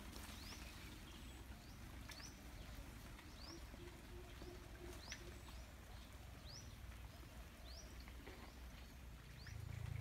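A bird calling with a short, high, rising chirp repeated about once a second, over faint outdoor background; a low rumbling noise swells up near the end.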